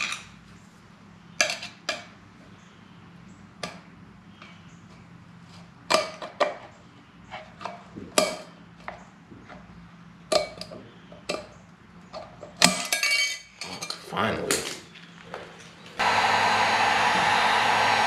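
Snap ring pliers and small metal parts clicking and clinking against the aluminium rear wheel hub as a snap ring is worked out. Near the end a heat gun switches on suddenly and blows steadily and loudly onto the hub.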